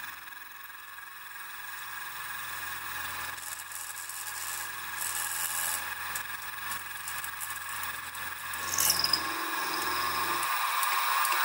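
Sieg SX2P mini mill running a 6 mm end mill through brass: a steady motor whine under the rasp of the cut. A brief falling squeal from the cutter about nine seconds in is the loudest moment.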